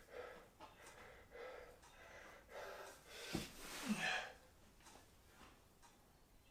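A man breathing hard between exercise sets, a series of faint breaths, with a short voiced exhale just before four seconds in. A soft knock comes about three and a half seconds in.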